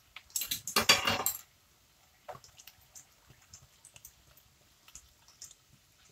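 Ale pouring from a glass bottle into a pan of chopped vegetables and butter beans: a louder splashing rush in the first second and a half, then faint scattered patter and ticks as the beer runs in.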